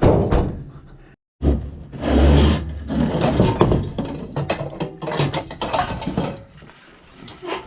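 Irregular knocking and clattering of scrap metal being handled, with a heavier low thud about two seconds in; the sound cuts out for a moment just after one second.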